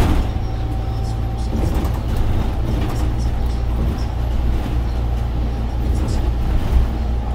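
Scania OmniLink three-axle bus's biodiesel engine running steadily while under way, heard from inside the passenger cabin as a continuous low drone with road noise.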